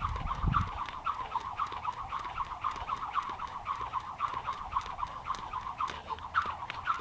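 Jump rope spinning through double unders, two rope passes per jump, making a fast even rhythm of about four to five passes a second.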